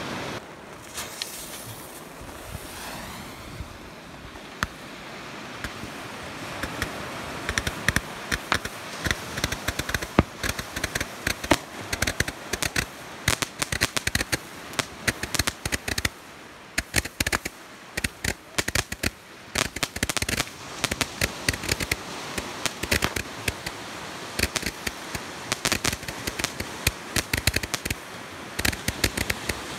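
Consumer firework firing from the ground, giving a long, rapid string of sharp pops and crackles that starts about six seconds in, with a brief lull around sixteen seconds.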